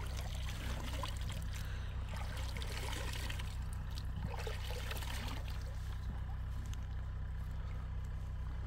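Icy water trickling and splashing as cupped hands scoop it up and let it fall back into an ice hole, with small splashes over the first few seconds that thin out later. A steady low rumble sits underneath throughout.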